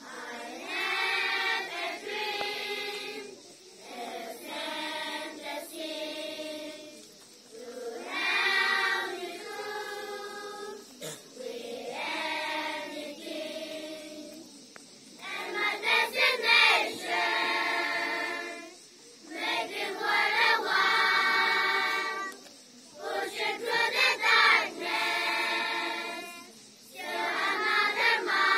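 Children's school choir singing together in phrases a few seconds long, with short breaths between them.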